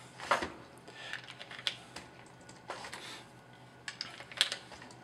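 A scatter of light, irregular clicks and taps of ammunition and gear being handled at a shooting-range bench, with a couple of sharper clicks.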